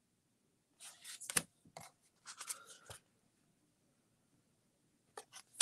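Short bursts of close rustling and scraping with a few sharp clicks, starting about a second in and stopping about three seconds in, followed by near quiet and then two more clicks near the end.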